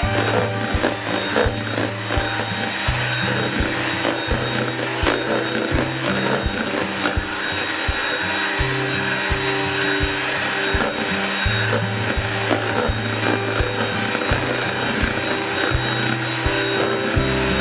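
A small electric kitchen appliance motor running steadily with a high whine, under background music with a stepping bass line.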